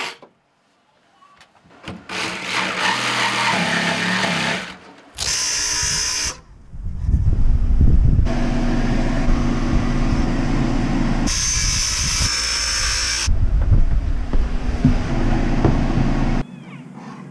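Power tools running in several separate stretches that start and stop abruptly, with a high whine in two short stretches. The longest is a steady run in the second half.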